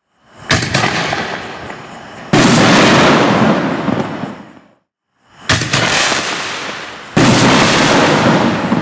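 Two Black Cat Neon Diablo firework shells, each fired with a sharp bang and then bursting with a louder boom about two seconds later. Each boom trails off over a second or two before going quiet.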